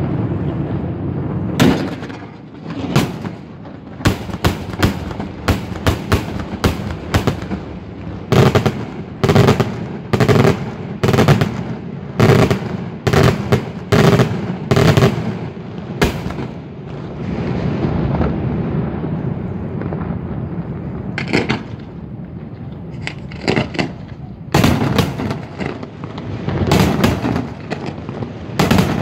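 Daytime fireworks display: aerial shells bursting in quick succession with sharp, echoing bangs, often one or two a second. There is a stretch of steadier rushing noise with few bangs past the middle, then the bursts resume.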